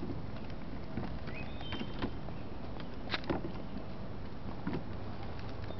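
Red plastic Radio Flyer wagon being pulled along an asphalt path, its wheels rolling with a steady low rumble, broken by several sharp clicks and knocks from the wagon, the loudest about three seconds in.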